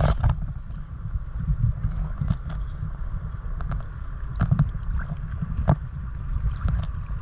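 Sea water sloshing around a camera held at the surface by a swimmer: a steady low churning, broken by a handful of sharp splashes.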